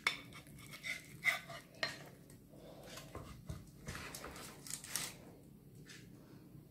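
Light clatter of a spatula against a plate and baking tray while food is served: a string of small clinks and taps, most of them in the first five seconds.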